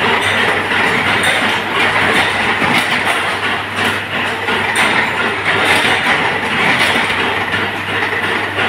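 Workshop machinery from a 25 kW induction forging machine running under load: a loud steady rushing and rattling noise over a constant low electrical hum, with scattered light clicks and clinks.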